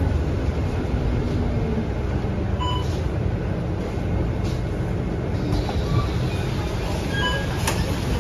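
Interior running noise of a Scania K230UB single-decker bus driving on a wet road in heavy rain: a steady low rumble of the engine and tyres. A few faint brief squeaks sound through it, and there is a sharp click near the end.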